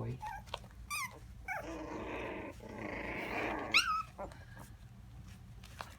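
Havanese puppies growling and yipping at play: a short falling whine about a second in, a rough growl for about two seconds, then a sharp high yelp near the four-second mark, the loudest sound.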